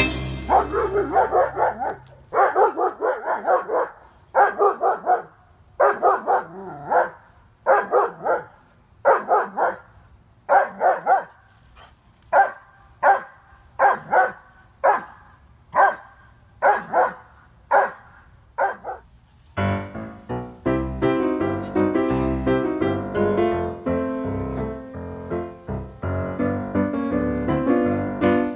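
A young German Shepherd barking repeatedly at another dog, about once a second, the reactive barking of a dog-aggressive dog. The barking stops about two-thirds of the way through, and piano music follows.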